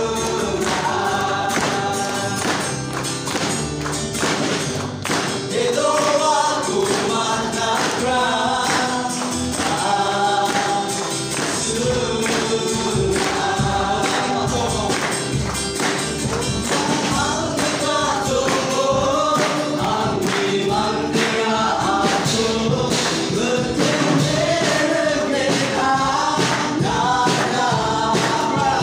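Live gospel worship song: a group of men and women singing together into microphones over acoustic and electric guitars, with a steady beat.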